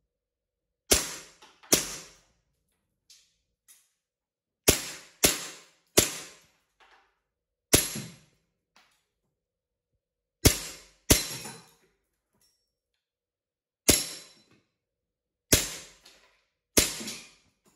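WE Beretta 92 FS gas blowback airsoft pistol firing single shots: about eleven sharp cracks at uneven intervals, each trailing off briefly, with a few faint clicks between them.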